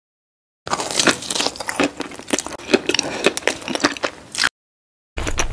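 Close-up mukbang eating sound effect: biting and chewing with many quick crackly, crunchy clicks, starting under a second in and cutting off abruptly near the end. Another eating sound begins just before the end.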